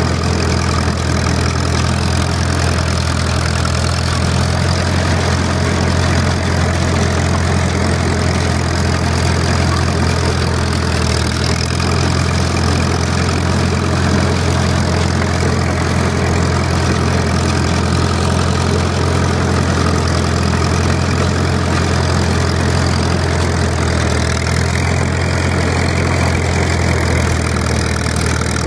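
Caterpillar D4 crawler tractor's diesel engine running steadily at an even speed.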